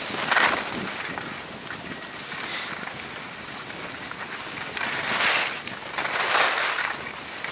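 Skis sliding and scraping over packed, groomed snow during a downhill run, with wind rushing over the microphone. The scraping swells louder about half a second in and again around five and six seconds in.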